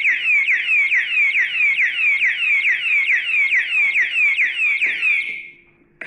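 Built-in siren of a vibration-triggered anti-theft alarm padlock going off after a second jolt: a loud electronic wail of quick falling sweeps, about four a second. It fades out about five seconds in.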